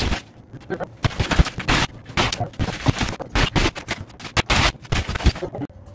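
Plaster and wood lath being knocked and torn out of a wall to open it up: a fast, irregular run of sharp cracks and knocks with crumbling debris, stopping abruptly near the end.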